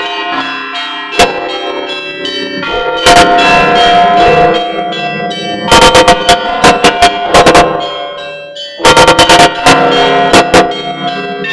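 Orthodox church bells being rung in a peal: clusters of quick strikes on the bells, about three times, with the tones of the bells ringing on between them.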